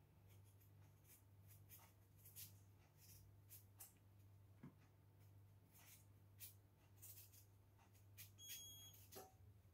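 Faint scrapes and soft clicks of a kitchen knife peeling a potato, over a low steady hum. A short high-pitched electronic beep sounds once near the end.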